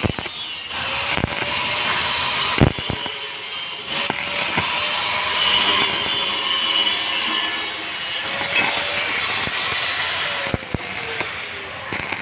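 Electric arc welding on a steel pipe in the vertical position: a steady crackling, sizzling arc with a few sharp cracks, easing off near the end.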